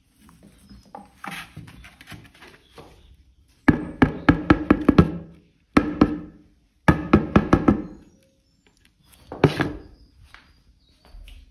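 A plastic dust bucket being knocked in quick runs of hollow, ringing thuds, several a second, in three bursts from about a third of the way in, with softer handling rattles before them and one more knock near the end.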